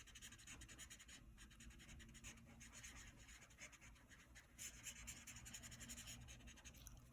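Faint scratching of a felt-tip marker on paper in quick back-and-forth strokes, colouring in an area.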